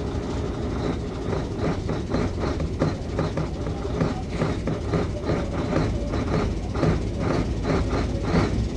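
Mercedes-Benz Actros 1844's V6 diesel engine idling, heard from inside the cab: a steady low rumble with a regular pulse about three times a second, while the air tanks are still filling.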